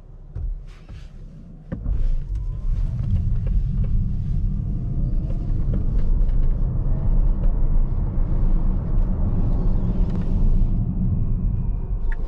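Tesla Model S dual-motor electric car driving: a few light clicks near the start, then a steady low road-and-tyre rumble that steps up about two seconds in. Above it is a faint whine that rises in pitch as the car gathers speed.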